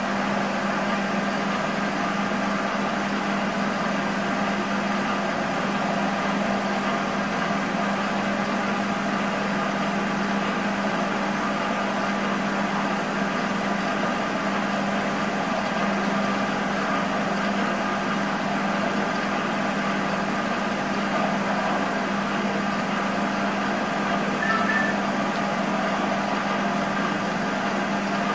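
Optimum D180x300 Vario mini lathe running with its chuck spinning while the carriage feeds toward the chuck: a steady motor and gear hum with a low steady tone. A short higher chirp sounds near the end.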